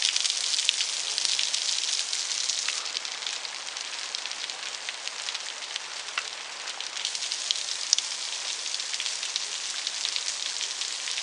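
Seep water dripping and trickling off an overhanging sandstone cliff, a dense, steady patter of many drops like rain.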